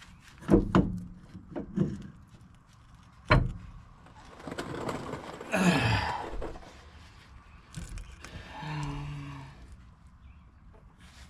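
A series of sharp metal knocks and clunks from work on a driveshaft U-joint, four or five in the first few seconds, followed by a longer rattling, scraping stretch.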